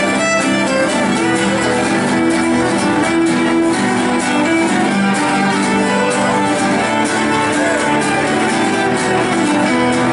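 Instrumental passage of an acoustic folk song: a fiddle bowing the melody over two acoustic guitars, playing steadily without singing.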